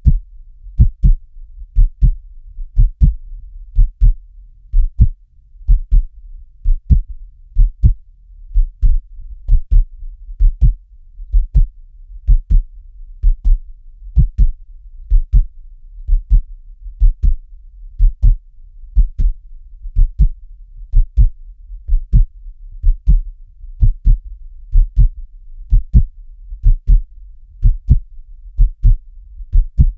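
Heartbeat sound effect: a steady lub-dub of paired deep thumps, about one beat a second, with a faint low rumble between beats.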